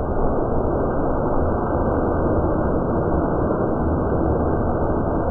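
Thunderstorm wind noise slowed to a tenth of normal speed, heard as a steady low rushing rumble with no distinct events.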